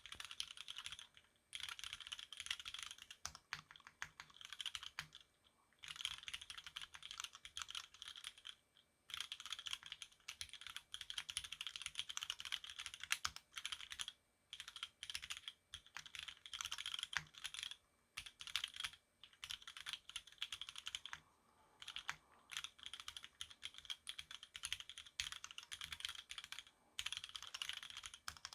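Fast typing on a CLAP No.1 gasket-mount mechanical keyboard with lubed, filmed Cherry MX Black linear switches on 65 g springs: dense runs of keystrokes broken by short pauses every few seconds.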